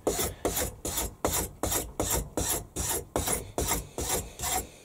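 A worn file card's wire bristles scrubbed back and forth along the teeth of a large steel file, a rasping scrape repeated a little over twice a second, clearing clogged debris from the file.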